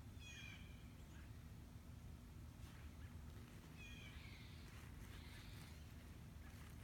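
Faint, short high-pitched animal calls: one about half a second in and another about four seconds in, each the same brief chirp-like figure, over a low steady rumble.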